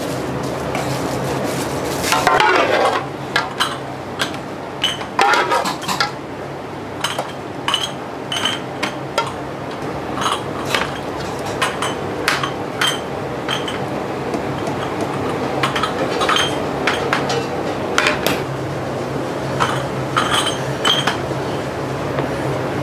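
Dishes and kitchen utensils clinking and knocking in many short, irregular strikes, some ringing briefly, over a steady low hum.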